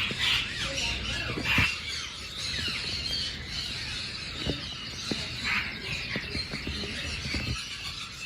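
Many caged birds chirping and squawking at once, shrill short calls overlapping one another, with a few light knocks.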